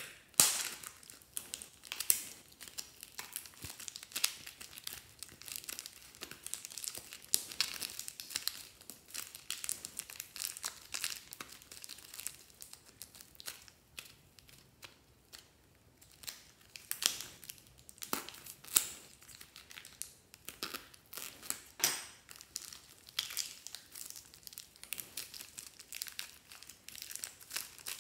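Thin plastic packets crinkling and crackling as hands squeeze and crumple them to push soft clay out. The crackles come thick and irregular, with a few short pauses.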